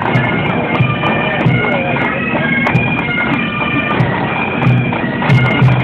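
Bagpipes playing a tune, the notes stepping from one to the next every half second or so.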